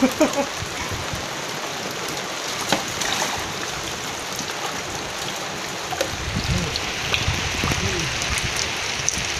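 Steady hiss of light rain falling on lake water, with a few faint knocks from a wooden paddle against a wooden canoe.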